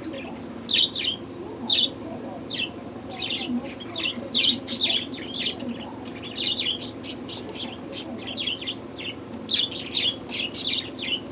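Budgerigars chirping: short, high chirps in quick clusters, over a low steady hum.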